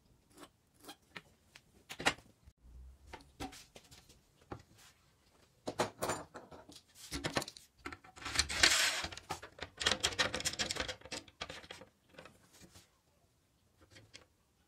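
Handling noises: scattered taps and knocks, then a spell of scraping and rubbing from about seven to eleven seconds in as an aluminium track-saw guide rail is set down and slid into position on wood, ending with a few light taps. No power tool is running.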